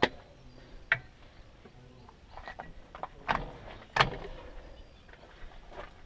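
Hydraulic hose tips being pushed into a tractor's rear remote couplers: a handful of sharp metallic clicks and clunks as the couplers and their dust caps snap.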